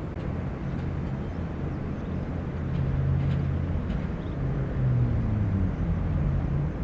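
Diesel engine of heavy construction machinery running under load, its pitch shifting a little as it works.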